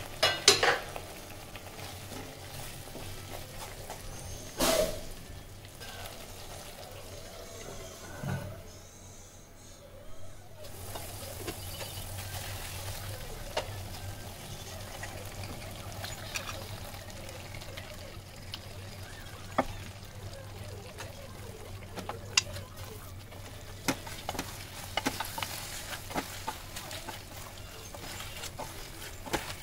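Duck curry sizzling and bubbling in a steel pan while a wooden spatula stirs it, scraping and knocking against the pan now and then; the loudest knocks come right at the start and about five seconds in.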